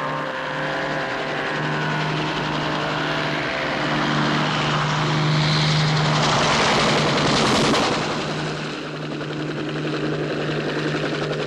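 Helicopters in flight: a steady low engine and rotor drone, with a rushing noise that swells as they pass close, peaking about seven seconds in, then easing off.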